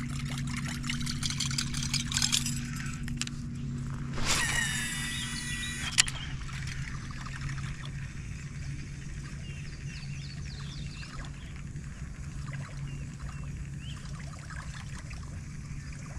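Water trickling and lapping, with a crackle of small clicks in the first few seconds and a steady low hum. About four seconds in, a brief buzzing rattle ends in a sharp click.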